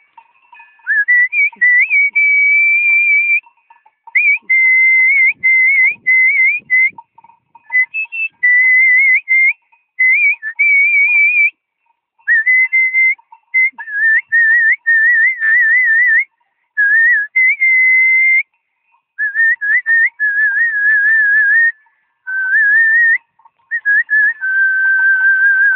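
A person whistling a tune in short phrases with quick trills and turns, broken by brief pauses, the pitch sinking lower toward the end.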